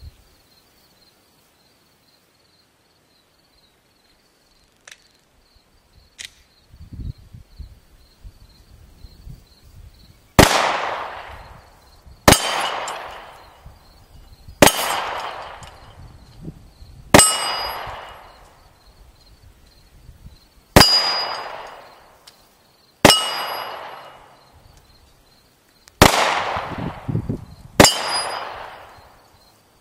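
Eight 9mm shots from a Glock 19 pistol, each followed at once by the ringing clang of a hit steel target. The shots start about ten seconds in and come every two to three seconds.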